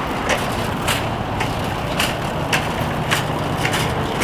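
Car being driven: a steady low rumble of engine and road noise, with a sharp, regular ticking about twice a second.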